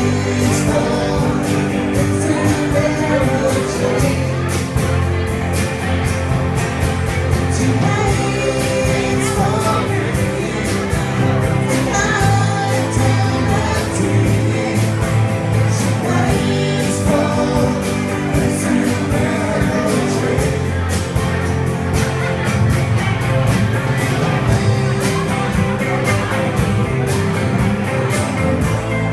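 Rock song with singing over a steady drum beat.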